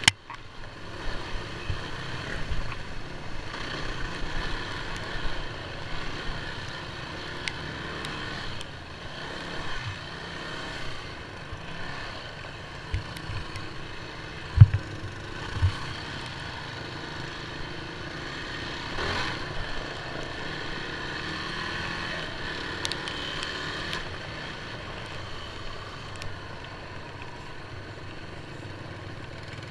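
Engine of an off-road vehicle running steadily while riding a rough dirt trail, with scattered knocks from the ride and two sharp thumps about halfway through.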